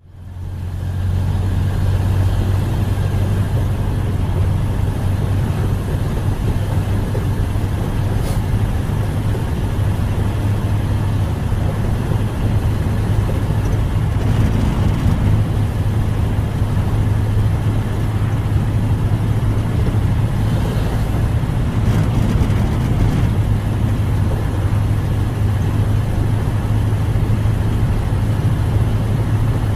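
Old car's engine running steadily with a low, even hum. It fades in over the first second.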